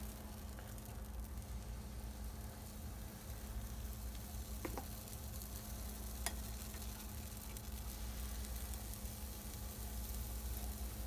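Pancake batter sizzling faintly on a hot nonstick griddle pan, a steady hiss with a couple of light clicks.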